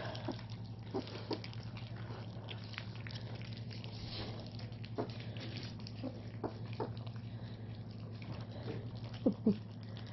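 Tosa Inu puppies eating from a shared pan: scattered chewing and smacking clicks, with two short puppy yips close together near the end, over a steady low hum.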